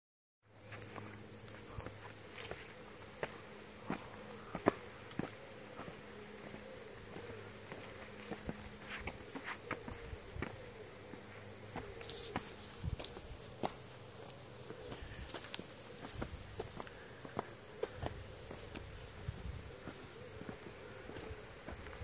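A steady, high-pitched insect trill in the rainforest, with scattered footsteps and clicks from people walking along a concrete path.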